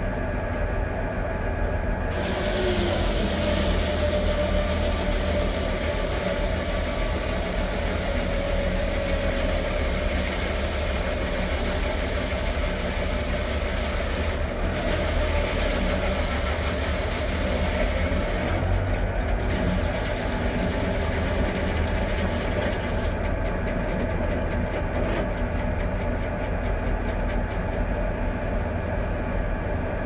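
Foley Belsaw circular sawmill with a 52-inch blade, belt-driven by a Ford 4000 diesel tractor running steadily under load. From about two seconds in, the blade is sawing through a pine log with a loud hiss. The cutting sound drops away about three quarters of the way through, leaving the engine and the spinning blade running.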